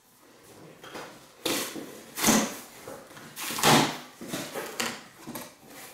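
Cardboard box top being pulled open, its glued flaps tearing free and scraping in several short rasps, the loudest about two and a quarter and three and three-quarter seconds in.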